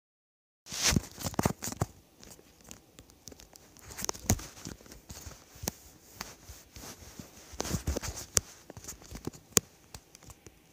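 Irregular rustling and crackling clicks with no speech, starting after a short dead silence at the beginning.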